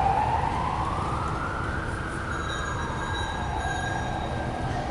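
Emergency vehicle siren wailing: a slow glide that climbs for about two seconds, holds, then falls about four seconds in and begins to climb again.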